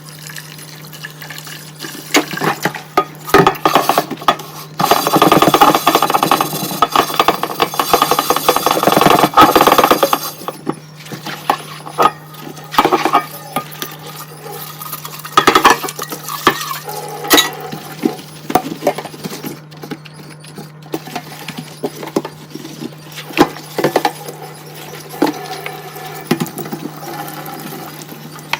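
Dishes and utensils being hand-washed at a sink: repeated clinks and clatters of dishware knocking together, with a stretch of steadier running-water noise from about five to ten seconds in. A faint steady hum sits underneath.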